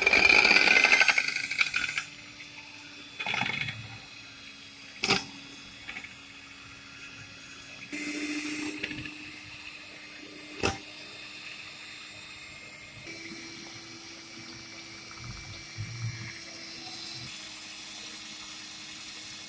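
Electric hand mixer running, its twin steel beaters whipping liquid cream in a glass dish toward soft peaks. It is loudest for the first two seconds, then settles into a steady motor hum whose pitch shifts up and down a few times as the speed changes, with two sharp clicks of the beaters knocking the dish.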